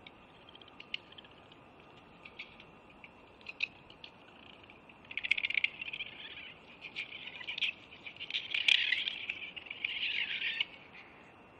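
Squirrel chatter: scattered single clicks at first, then from about five seconds in a long run of rapid chattering pulses and rasping buzzes, loudest near the nine-second mark, which stops shortly before the end.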